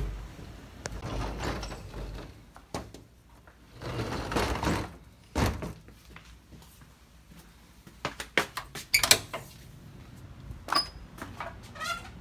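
A door being opened and shut, with handling rustle, then a quick run of clicks and knocks about eight to nine seconds in.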